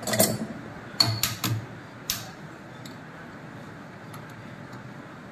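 Metal clicks and clinks of a spanner and steel pipe fittings being handled on a diesel injection pump: a cluster of clicks at the start, three sharp clinks about a second in and one more about two seconds in.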